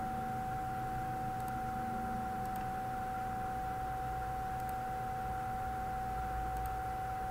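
Steady background noise from the recording: hiss and a low hum under a constant high electronic whine, with a few faint ticks.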